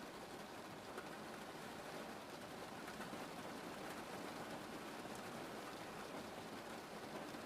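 Steady rain falling, a soft even hiss with no distinct drops or rhythm standing out.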